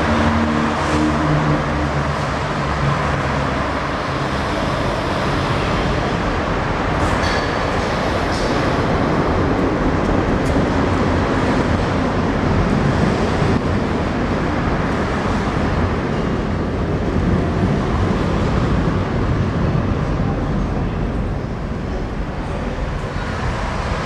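Berlin S-Bahn or U-Bahn train running on rails, a steady loud rumble with a few faint clicks.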